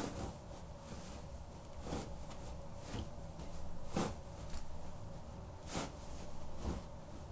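Muddy Caterpillar suede boots treading and scuffing on a bedcover: about half a dozen soft fabric-rustling steps at irregular intervals, the loudest about four seconds in.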